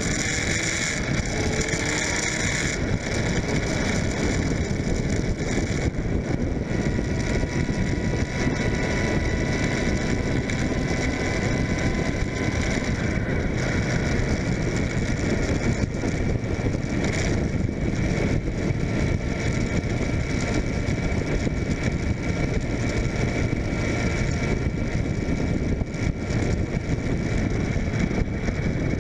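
Suzuki GSF600 Bandit's inline-four engine running at road speed under heavy wind rush and buffeting on the microphone, its pitch rising briefly near the start as the bike accelerates, then holding steady.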